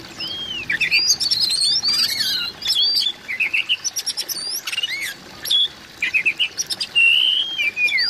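Male Oriental magpie-robin singing: a quick, varied run of rising and falling whistled notes mixed with sharp clicking notes, with a longer held whistle near the end.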